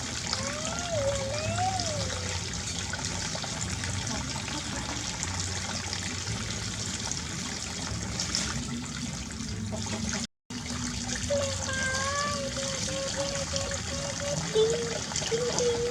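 Water running and trickling steadily, as from a tap during a bath, with a few faint wavering whines over it; the sound cuts out for a moment about ten seconds in.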